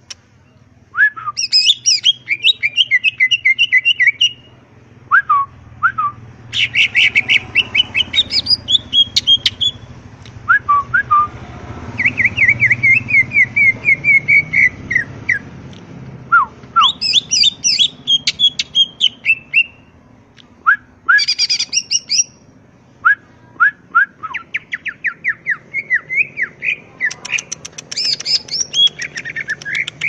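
Caged male green leafbird (cucak ijo) singing hard in loud bursts of rapid-fire phrases: quick chattering runs, strings of fast falling notes and rapid ticking trills, with short pauses between phrases.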